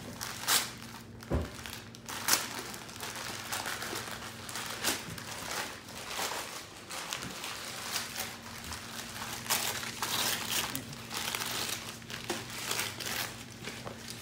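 Wrapping paper being torn and crumpled as a present is unwrapped: repeated sharp rips and crinkling, the loudest rips in the first couple of seconds.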